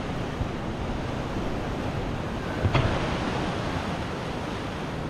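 Ocean surf washing steadily, with wind buffeting the microphone. A single brief knock a little under three seconds in.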